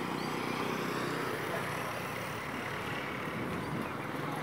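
Truck engine idling, a steady low hum with even pitch, under a hiss of roadside traffic noise.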